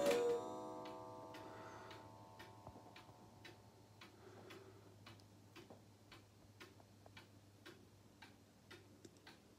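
Vintage German one-day mechanical cuckoo clock ticking evenly at about two ticks a second. The last tones of its twelve o'clock cuckoo call die away in the first second or two.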